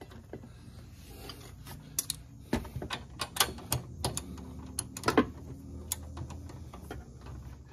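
Hand ratchet clicking in short, irregular strokes, with light metal clinks, as a second lock nut is run down on a front shock absorber's mounting stud.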